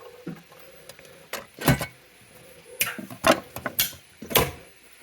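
Tools and hardware being handled: about six sharp clicks and knocks over a few seconds, the loudest a little under two seconds in.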